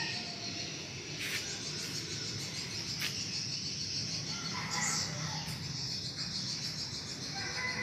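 Garden ambience: a steady high-pitched chirring with a few short bird chirps about five seconds in and again near the end, and a couple of faint clicks early on.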